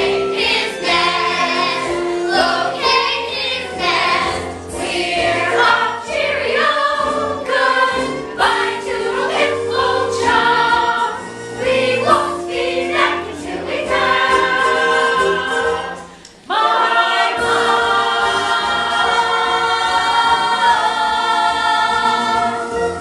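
A stage-musical cast singing together in chorus. About sixteen seconds in there is a brief break, then the voices hold a long final chord for about six seconds.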